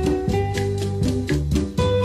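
Instrumental dance music with a steady beat, bass and sustained melody notes.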